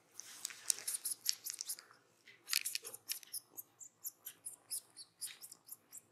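Kitten chewing and gnawing on a person's finger: a quick, irregular run of small wet clicks and smacks from its mouth, several a second.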